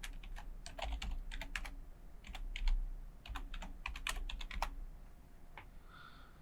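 Computer keyboard typing: quick runs of key clicks that stop about three-quarters of the way through, followed by one last click.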